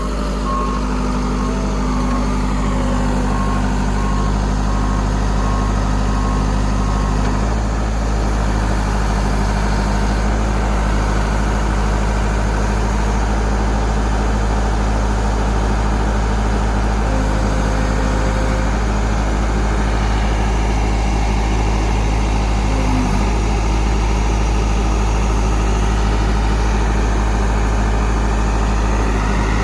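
Backhoe engine running steadily under load, with its reversing alarm beeping for about the first seven seconds.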